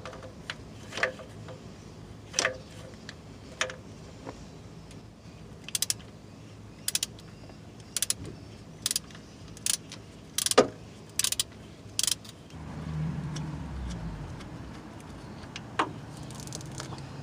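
Ratchet turning an 18mm deep socket to loosen the bottom nut of a Jeep motor mount. It clicks in short bursts about once a second as it is swung back and forth, with a few metal clinks of tools before it. A low rumble follows the ratcheting near the end.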